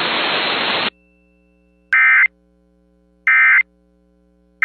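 Radio static hiss cuts off about a second in. Three short, loud, buzzy digital data bursts follow at even spacing: the EAS end-of-message (EOM) codes that close the broadcast alert, the third starting right at the end.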